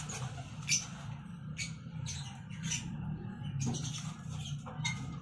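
Racing pigeon being handled at the loft's wire trap: a series of short, sharp wing flaps and scuffles, the loudest about a second in, over a steady low hum.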